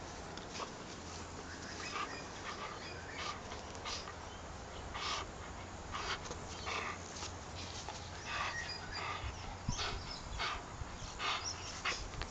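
English Bull Terrier puppy playing tug with a rope toy, making short, breathy sounds from its mouth and nose, irregular and a few each second.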